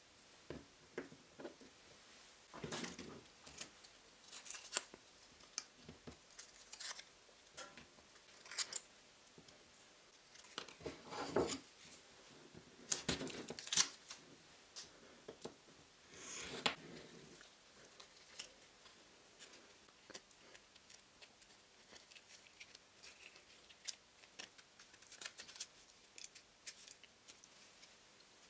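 Irregular short scraping, snipping and crinkling strokes from thin wood veneer and masking tape being handled and cut with a scalpel on a cutting mat. The strokes come in scattered clusters, the loudest about halfway through.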